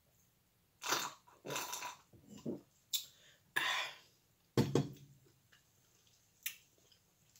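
Close-miked mouth sounds from sipping beer through a straw: a run of short sips, smacks and breaths, about six in four seconds, followed by a few faint clicks.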